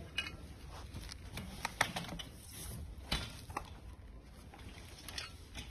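Irregular light clicks and knocks of black steel sofa-frame bars and fittings being handled and set together.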